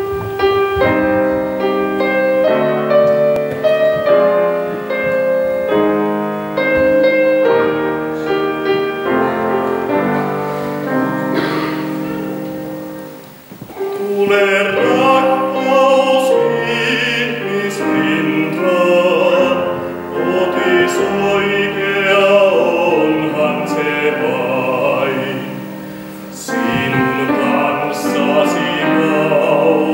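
Grand piano playing a slow introduction, then a man's classical singing voice with vibrato enters about fourteen seconds in over the piano accompaniment.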